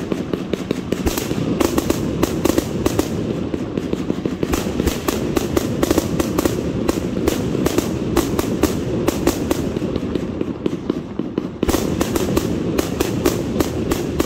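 Multi-shot aerial fireworks going off in quick succession: a continuous string of sharp launch thumps and bursting cracks, several a second.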